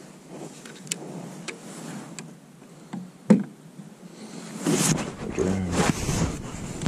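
Fishing rod and line-counter baitcasting reel being handled and set into a rod holder on a boat: a few light clicks, one sharp knock about three seconds in, then louder rustling and knocking of gear against the holder from about five seconds in.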